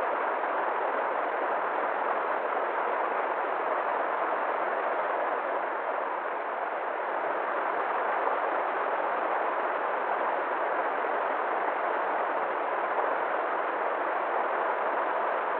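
River water flowing: a steady, even rush with no breaks.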